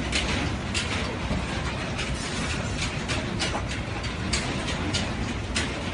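Earthquake ground shaking: a continuous low rumble with buildings and loose objects rattling, and irregular sharp clatters every second or so.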